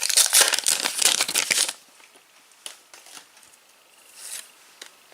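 Foil wrapper of a Panini Adrenalyn XL trading card pack crinkling for the first couple of seconds, then the cards handled and flicked through, with soft scattered ticks and slides.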